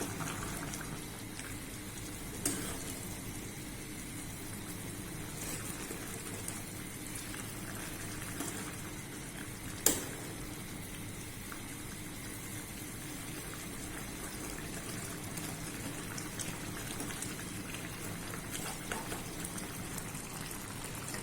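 Gourd pieces boiling in spiced water in a pot on the stove, a steady bubbling with fine crackle as they cook soft. Two sharp clicks cut through it, one about two and a half seconds in and a louder one near ten seconds.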